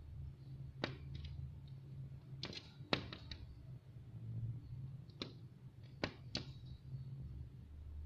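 A red-vented bulbul pecking at window glass: about nine sharp taps of its beak on the pane, some single and some in quick pairs, at irregular intervals. The bird is striking the glass at its own reflection or at shadows, which the uploader puts down to confusion over the shadow of a climbing grape vine.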